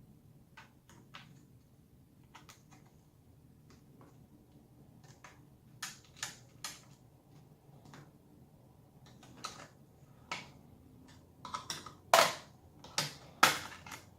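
Scattered light clicks and taps from a laptop and small tools being handled during disassembly, with a cluster of louder clicks and knocks near the end.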